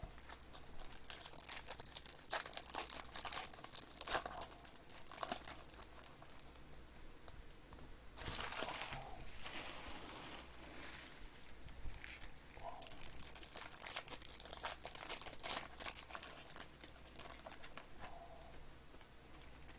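Crinkling and tearing of plastic wrapping as a trading card box and its packs are opened and handled: scattered sharp crackles, with a longer stretch of rustling about eight seconds in.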